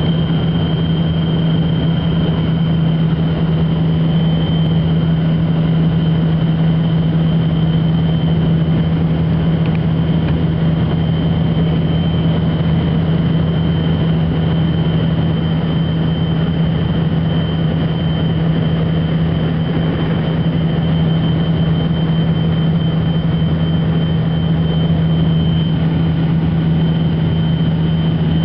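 Cabin noise inside a Tupolev Tu-134B-3 on final approach: its rear-mounted Soloviev D-30 turbofan engines running steadily, a constant high whine over a deep hum and rushing air, with no change in engine power.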